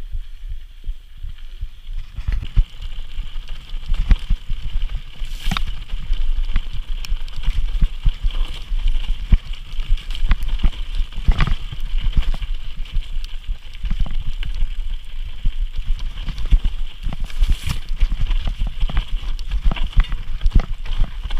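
Mountain bike descending rocky singletrack, heard through an action camera mounted on the rider: a constant low rumble of tyre and wind noise with frequent sharp knocks and rattles as the bike bounces over rocks. It gets busier and louder about two seconds in.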